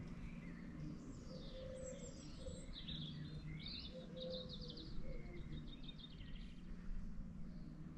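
Small birds singing and chirping, with quick trills and short calls throughout, over a faint steady low rumble.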